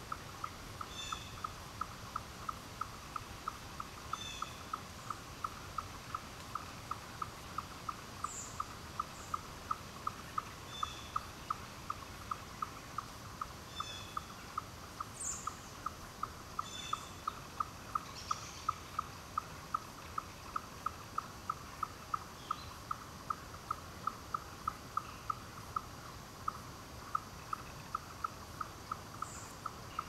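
Woodland wildlife: a short, low call note repeated steadily about twice a second, with scattered higher bird chirps and a few brief falling whistles above it.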